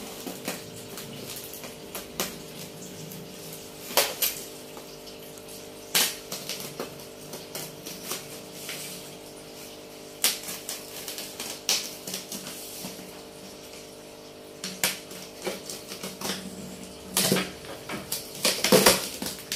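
Packing tape on a cardboard parcel being cut and torn open, in a string of separate scrapes and rips that come thickest near the end, over a steady low hum.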